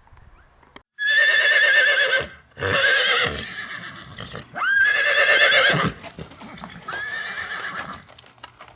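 Horse neighing: four high, wavering whinnies of about a second each, the last one fainter.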